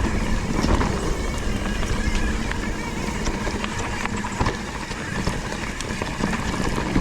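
Mountain bike ridden over a rough dirt trail, heard from a bike-mounted action camera: steady wind and tyre rumble with scattered rattling clicks and knocks from the bike over the ground.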